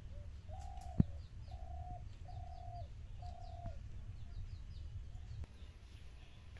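A dove cooing: four level notes of about half a second each in the first four seconds, with small birds chirping faintly throughout. A single sharp click about a second in is the loudest sound.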